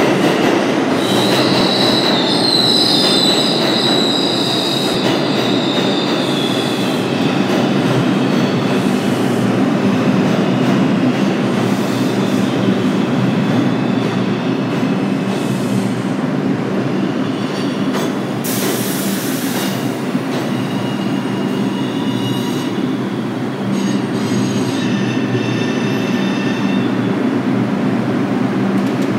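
Bombardier R142 subway train pulling into the station and slowing to a stop: a steady rumble of the cars, with high wheel squeal in the first few seconds and again near the end, and a short hiss about two-thirds of the way through.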